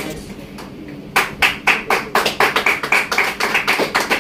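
A small group of people clapping, starting about a second in, with sharp, even claps at about five a second.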